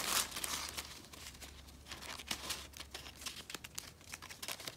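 Tissue paper rustling and crinkling as a hand lifts a small paper booklet out of it. It is loudest in the first half second, then softer scattered crinkles follow.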